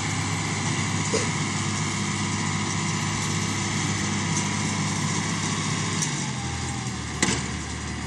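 John Deere 2840's six-cylinder diesel running steadily while pulling a New Holland round baler through the windrow. About six seconds in the engine note drops as the tractor slows with the bale finished, and a single sharp clank follows about a second later.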